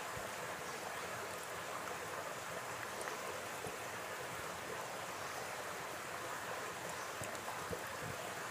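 Steady rushing of flowing stream water, with a few faint soft wet clicks as hands work thick spice paste into raw chicken legs in a clay bowl.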